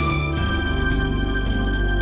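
Organ music holding sustained chords, shifting to a new chord about half a second in.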